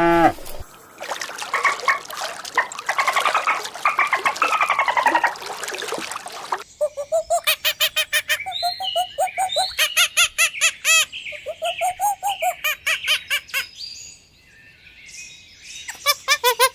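Birds chirping and calling: a dense chatter of chirps, then a long run of quick, repeated arched calls, a quieter stretch, and more quick calls near the end.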